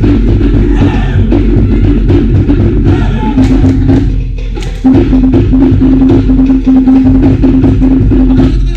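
Cook Islands drum-dance music: fast, dense drumming with wooden and deep-toned drums keeping a quick even beat. It drops away briefly about four seconds in, resumes, and stops near the end.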